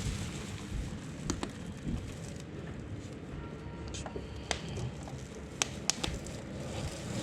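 Handling noise while PC parts and power cables are worked: faint rustling broken by scattered sharp clicks, a few of them close together near the middle and again near the end.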